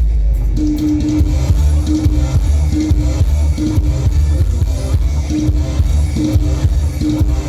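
Live Isan band music: a drum kit and heavy bass keep a steady beat while a plucked string lead repeats a short phrase over and over.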